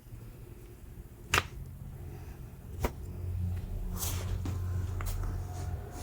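Two sharp cracks about a second and a half apart, the first the louder: joints popping during a chiropractic adjustment. A low rumble follows.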